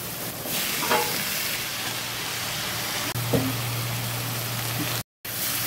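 Steady sizzling of a dal tadka frying in hot oil, dropping out briefly near the end.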